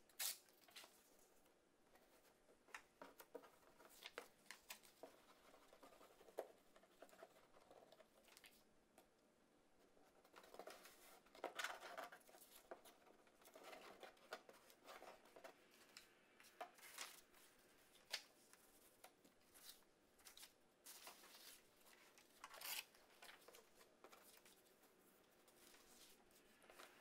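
Faint, intermittent rustling and tearing of construction paper, with a glue stick rubbing and torn paper pieces being pressed onto a cardboard shoebox.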